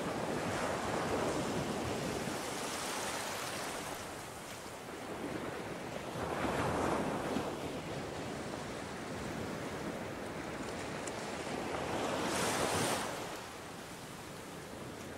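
Surf on a sandy beach: a steady wash of waves with three louder swells as waves break, near the start, in the middle and near the end. Wind is heard on the microphone.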